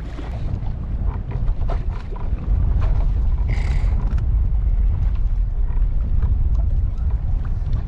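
Wind buffeting the microphone on an open boat, a loud unsteady low rumble that swells about two and a half seconds in, with scattered light ticks. A brief high tone sounds once near the middle.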